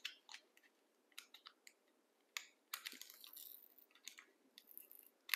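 Faint crinkling and scattered clicks of toy packaging and tape being picked and pulled open by hand, with short stretches of rustling about a third of the way in and near the end.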